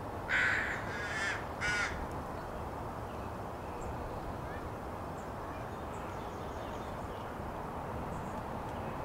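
Crow cawing three times in quick succession, harsh calls over a steady low background noise.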